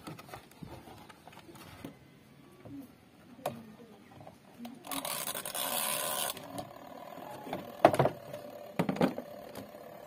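Plastic control-panel head of a twin-tub washing machine being handled and lifted: a scraping rush about five seconds in, then two sharp knocks about a second apart.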